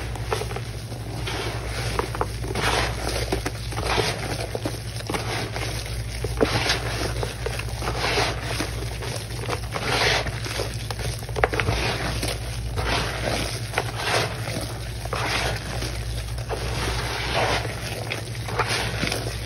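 Gloved hands squeezing and mashing wet, crumbly Ajax cleanser paste: repeated crumbling, squishing squeezes, roughly one a second and uneven, over a steady low hum.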